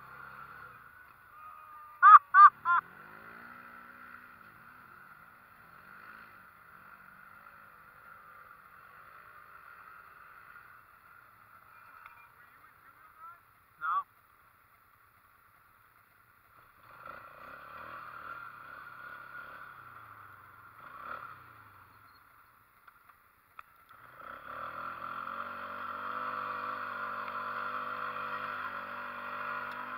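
Side-by-side UTV engine running, muffled and fairly quiet, with three short loud honks about two seconds in and a brief sharp sound around the middle. Near the end the engine comes up louder with a steady pitched hum.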